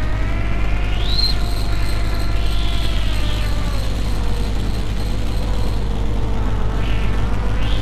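Lumanoise v4 electronic noise instrument playing a dense drone through delay and plate reverb: a steady low rumble under a slowly wavering tone, with a filter sweep rising to a sharp high peak about a second in and another rising near the end.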